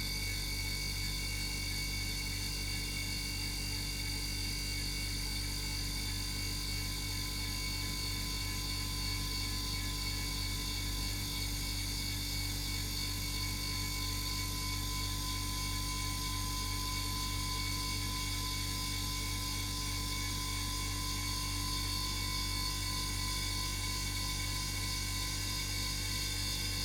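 A broken refrigerator running with a steady hum and several high, whining tones over it.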